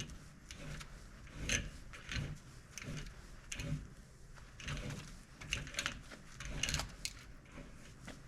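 Scattered light clicks and knocks of hand work as a new tie rod end is fitted onto a car's steering.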